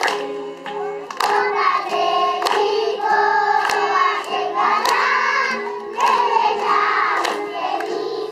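A group of young children singing together, clapping in time about once every second and a quarter, with an acoustic guitar strumming along underneath.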